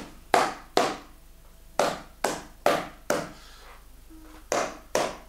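About eight sharp hand claps in twos and threes with short pauses, each followed by a brief room echo. They are clapped at different sides of the microphone to test its stereo pickup.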